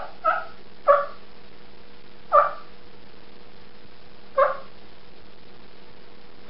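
Wild turkey hen clucks made on a mouth diaphragm call: about five short, single sharp notes, each dropping in pitch, spaced unevenly over several seconds. Soft clucks like these are a hen's calm contact call, kept short so they don't turn into an alarm put.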